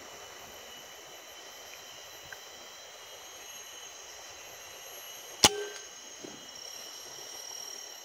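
A single air-rifle shot about five and a half seconds in: one sharp crack, over a faint steady drone of forest insects.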